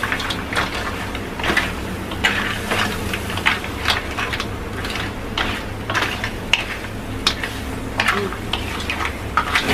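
Crabs in thick sauce being stirred and turned in a metal wok: irregular scrapes and clicks of shell and utensil against the pan, over a steady low hum.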